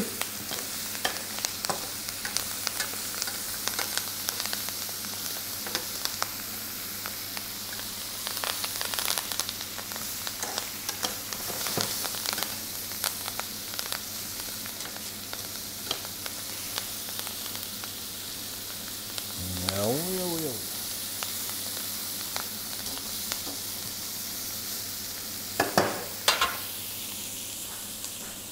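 Rock ptarmigan carcasses, onion and carrot sizzling in a hot frying pan as they brown, with steady frying hiss and many small clicks of metal tongs turning them against the pan. Two sharp knocks near the end are the loudest sounds.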